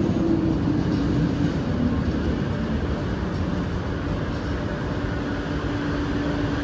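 Kelana Jaya line LRT train pulling into the station platform and coming to a stand: a steady rumble with a faint low whine that drops slightly in pitch over the first two seconds, then holds level.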